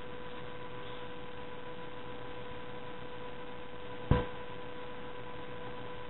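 Steady electrical hum with a faint hiss, broken by one sharp knock about four seconds in.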